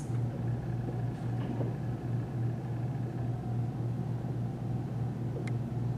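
A steady low mechanical hum with a rumble, pulsing slightly, under faint sounds of a dry-erase marker writing on a whiteboard.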